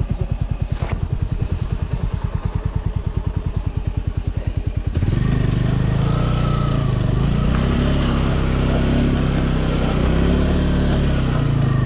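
A single-cylinder 200 cc motorcycle engine idling with a rapid, even chug, then about five seconds in it revs and pulls under load.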